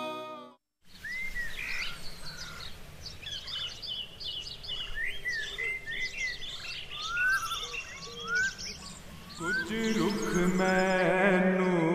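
Birds singing: many short chirps and repeated rising whistles. Music fades out at the start, and music with a chanting voice comes in near the end.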